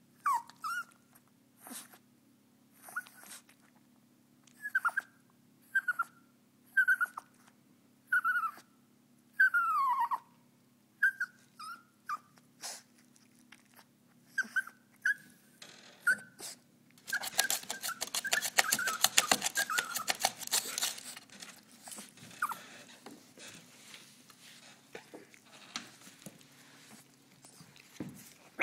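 White Pomeranian puppy whining: short, high whimpers, each bending down in pitch, repeated about once a second. Past the middle comes a few seconds of dense, scratchy noise with the whines faint beneath it, then only sparse sounds.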